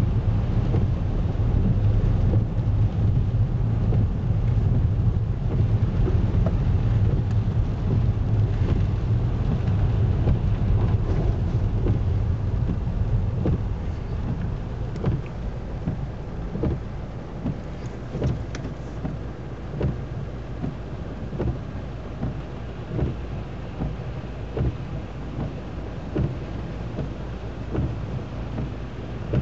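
Car engine and road rumble heard from inside the car. About halfway through it drops to a quieter, steadier run with scattered faint knocks.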